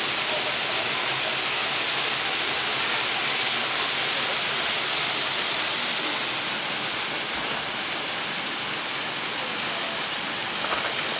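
Steady rush of water falling down a partly frozen waterfall, an even hiss with no breaks.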